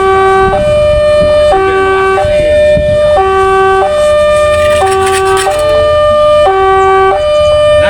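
A railway level crossing's warning siren sounds a two-tone alarm, switching steadily between a lower and a higher tone about every second; the title calls it hoarse. Under it is a low rumble of road vehicles.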